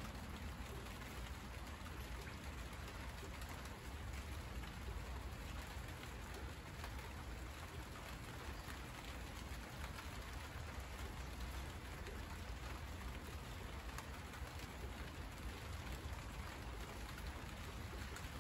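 Steady rain falling on broad monstera leaves, an even hiss with single drops ticking now and then, over a low steady rumble.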